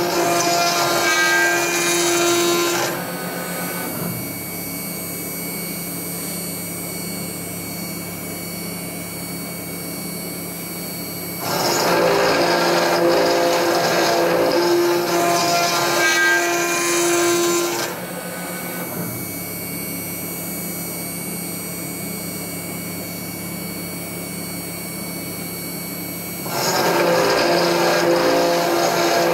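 Mechmate CNC router spindle milling 10 mm S355MC steel plate with an endmill. Loud cutting with a pitched ringing alternates with quieter stretches of steady spindle tone. The cut drops back about 3 s in, comes up again about 11 s in, drops about 18 s in and returns about 27 s in.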